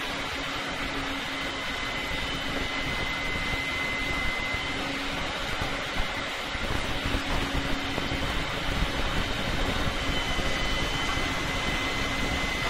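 Truck-mounted boom crane's engine running steadily with a faint high whine while it hoists a load. A low rumble grows stronger from about halfway through.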